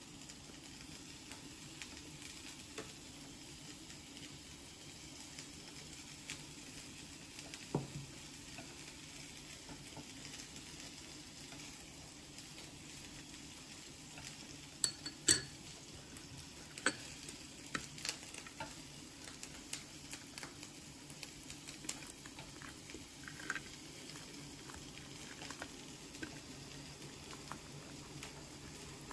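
Scattered small clicks and taps of chopsticks and fingers handling fillings on a plate, a few louder ones about halfway through, over a faint steady hum.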